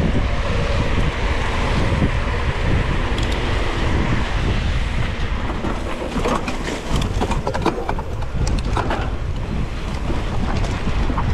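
Heavy wind buffeting on an action camera's microphone while riding a mountain bike at race speed on a dirt track. Scattered clicks and rattles, from the bike and the rough ground, come in from about five seconds in.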